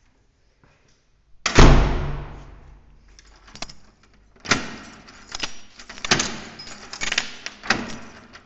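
A flat's front door banging shut about a second and a half in, the loudest sound. Then keys jangle and a lock clicks and rattles repeatedly as a key is worked in the door's cylinder lock.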